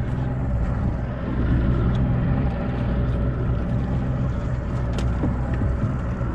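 Small boat's motor running steadily at low revs, a constant low hum, with a sharp click about five seconds in.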